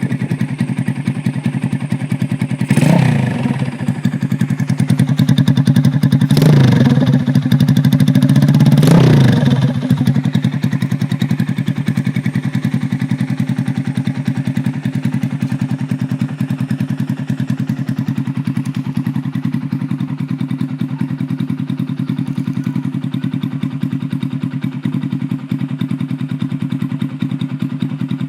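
Yamaha Sirius motorcycle's single-cylinder engine, bored out with a 62 mm piston, idling and revved sharply three times in the first ten seconds, each rev rising and dropping back, then settling to a steady idle.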